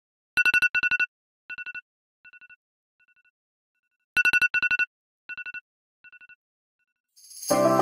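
Electronic wake-up alarm beeping: two loud clusters of rapid beeps followed by fainter, fading repeats, the whole pattern sounding twice. Music begins near the end.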